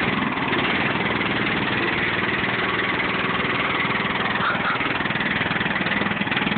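Lawn mower engine running steadily under the load of towing a jeep.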